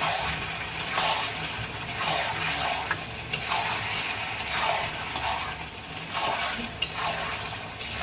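Mutton pieces with ginger paste frying in an aluminium kadai while a spatula stirs them in regular strokes, each stroke a swell of sizzling and scraping. A few sharp clicks of the spatula against the metal pan.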